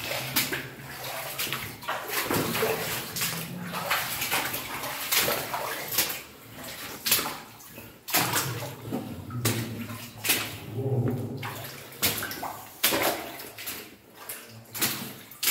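Wading through water in a flooded mine tunnel: sloshing splashes with each step, roughly one a second.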